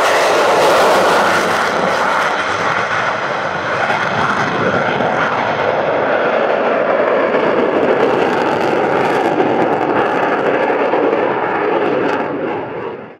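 A Dassault Rafale's twin Snecma M88 turbofan engines make a loud, steady jet roar as the fighter flies tight display turns with its afterburners lit. The sound drops suddenly at the very end.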